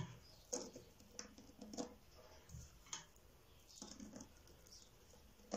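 A few faint, irregularly spaced light taps and pats as hands work over oiled dough spread with chopped herbs on a wooden board.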